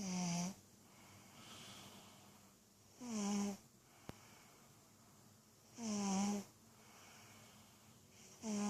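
Person snoring in sleep: a short, wheezy, pitched snore about every three seconds, four in all, with softer breaths between.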